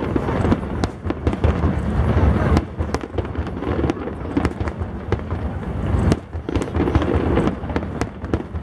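Aerial fireworks bursting in the sky: a dense, irregular run of sharp pops and cracks over a steady low rumble.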